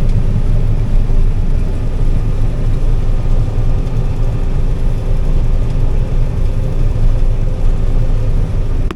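Combine harvester running steadily while cutting and threshing soybeans: a constant low drone with a faint steady hum above it.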